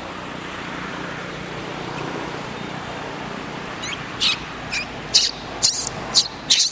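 Steady outdoor noise, then from about four seconds in a quick run of short, shrill squeals from a baby macaque as an adult handles it.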